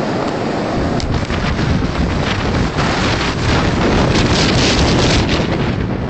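Blizzard wind blowing snow and buffeting the microphone with a loud, even rush, gusting harder around four to five seconds in.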